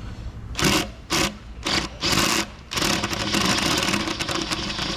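A power tool runs in several short bursts, then steadily with a rapid clatter for the last two seconds, unscrewing a connecting-rod cap bolt on the third cylinder of a Ford Ranger 2.3 four-cylinder engine.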